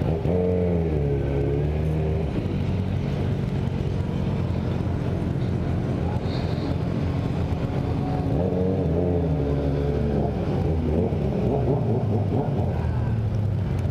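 Motorcycle engine running at low speed, its pitch rising and falling a few times as the throttle is opened and closed.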